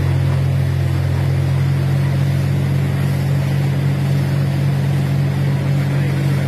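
Truck-mounted borewell drilling rig running steadily, its engine and air compressor droning at a constant pitch while compressed air blasts water and spray out of the borehole.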